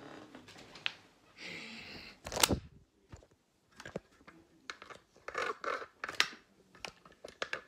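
Handling noise from the camera being picked up and moved: rustling, scraping and small clicks, with one loud knock about two and a half seconds in.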